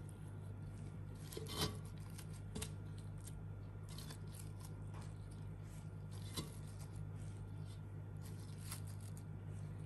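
Pieces of fried lamb being laid by a plastic-gloved hand into a clay pot: soft rustles of the glove and light knocks of meat on the pot, the loudest about a second and a half in, over a steady low hum.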